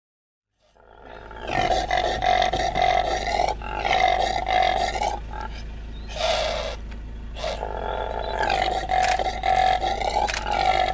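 Male impala calling: a run of loud, grunting roar-calls, each about one to two seconds long with short gaps between them, beginning about a second in.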